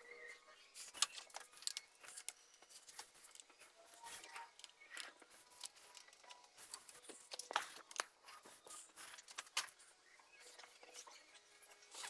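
Faint, scattered clicks and light handling noises, a dozen or so irregular ticks with no steady machine running.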